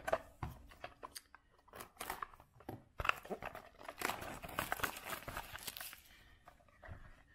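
Small cardboard Topps 206 hobby box being opened by hand: its flap is pried and torn open and the card stock is handled, making irregular tearing, scraping and rustling with small taps, busiest in the middle.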